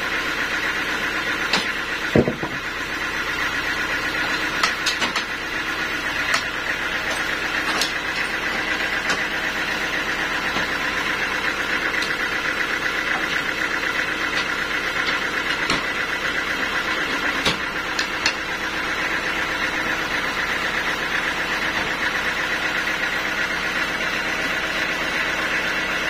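Band sawmill running steadily with no wood in the cut, a continuous machine drone. Now and then sharp knocks ring out as the heavy teak log is levered and shifted on the saw carriage, the loudest about two seconds in.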